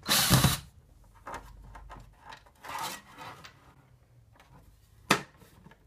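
Plastic sprinkler controller being taken down from a wooden wall: a loud scrape at the start, then plastic rubbing and scraping on the wood, and a sharp click about five seconds in.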